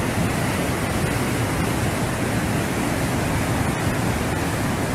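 Swollen river floodwater rushing past, a steady, even noise of churning water.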